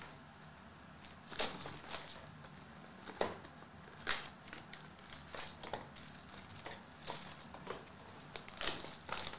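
Cardboard and foil crinkling as a Bowman Chrome hobby box is opened by hand and its foil-wrapped card packs are handled, in irregular short crinkles and rustles.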